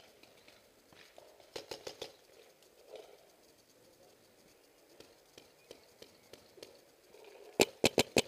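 Paintball marker firing: a short burst of softer pops about a second and a half in, then near the end a rapid loud string of shots, several a second, from a Planet Eclipse Geo2 marker.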